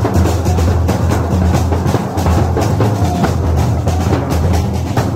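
Marching drum band playing: big double-headed bass drums and snare drums beaten with sticks, many hits a second in a continuous rhythm.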